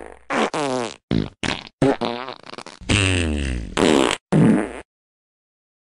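A comic sound effect edited into the video: about six buzzy blasts of shifting pitch in quick succession, with hard cuts between them, ending abruptly nearly five seconds in.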